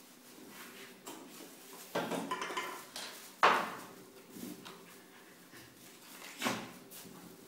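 Shetland sheepdog puppies at play: a few short, sharp yips and knocks over quieter scuffling. The loudest comes about three and a half seconds in.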